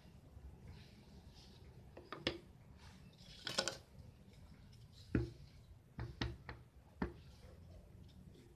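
Wooden pattern pieces, mostly plywood, knocking against each other and the workbench as they are handled and set down: a string of separate knocks with a brief clatter about halfway through, over a steady low hum.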